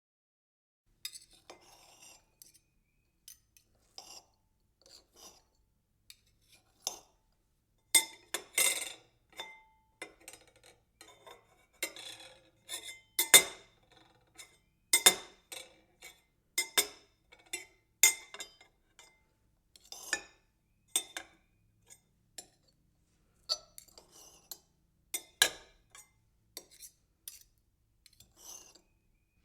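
A kitchen knife rattling and cutting: irregular clinks and knocks of metal, some ringing briefly, with a few louder clattering clusters.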